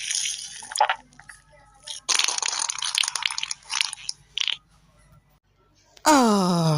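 Several bursts of crackling, sputtering noise with sharp cracks. Near the end comes a loud, long groan from a person's voice, falling steadily in pitch.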